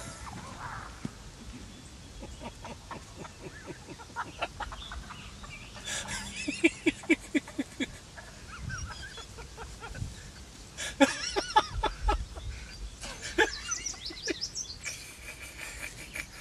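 Wild turkey calls: a quick run of short, evenly spaced notes about six and a half seconds in, then higher, longer calls around eleven and thirteen seconds, over scattered clicks and rustling.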